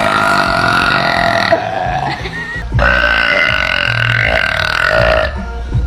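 A woman's loud, drawn-out burps: one lasting about a second and a half at the start, then after a short pause a second, steadier one of about two and a half seconds. Both hold a clear, even pitch.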